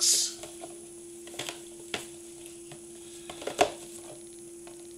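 Pages of a comic-book collection being handled and turned: a short burst of paper rustling at the start, then scattered rustles and light taps, the sharpest about three and a half seconds in. A faint steady hum runs underneath.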